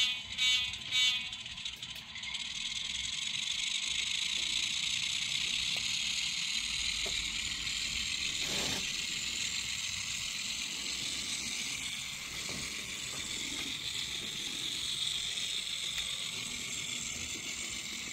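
ESU sound decoder of an N-scale Alco FA diesel model locomotive, heard through its tiny speaker: three short horn toots at the start, then the diesel engine's steady, thin and tinny running sound as the model rolls along the track, with a single click about halfway.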